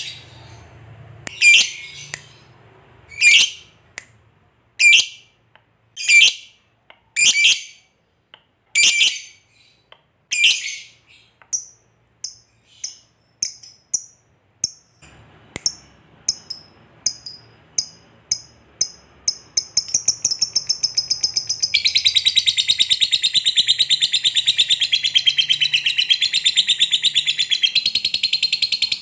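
Masked lovebird calling. It gives about seven loud, shrill single calls roughly a second and a half apart, then quicker, softer chips. About two-thirds of the way in it breaks into a long, unbroken rapid chatter: the 'ngekek panjang' (long chatter) song that lovebird keepers prize.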